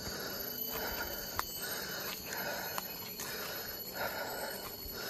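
Footsteps on dry fallen leaves, about one step a second, over a steady high insect whine.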